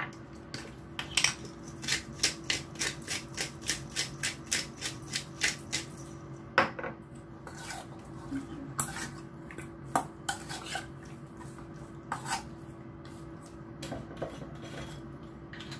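Metal spoon clinking and scraping against a stainless steel mixing bowl as raw chicken wings are tossed in marinade. It starts with a quick run of about four clinks a second, then slows to scattered single clinks, over a steady low hum.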